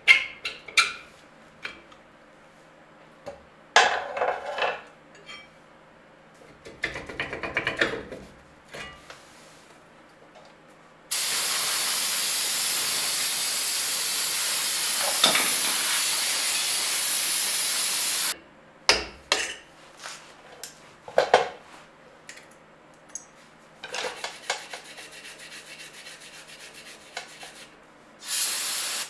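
Metal clanks and rattles of brake parts being handled, then an aerosol spray can hissing in one steady blast of about seven seconds onto the bare rear hub and backing plate, with a second spray starting near the end.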